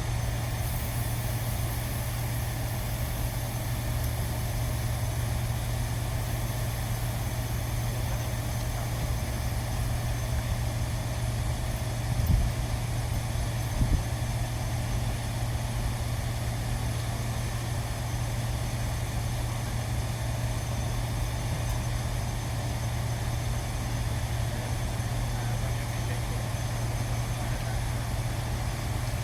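Steady low mechanical hum of running machinery or an engine, unchanging throughout, with two brief knocks about twelve and fourteen seconds in.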